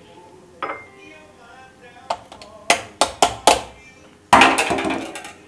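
Kitchenware handled at a stainless steel sink: about five sharp knocks and clicks in quick succession, then a louder noisy burst about four seconds in that fades away, over faint background music.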